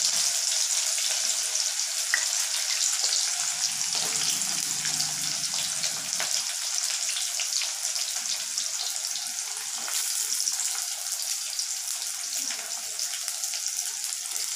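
Chopped onions frying in hot oil in a clay pot: a steady high sizzling hiss with fine crackles that slowly dies down as the onions cool the oil.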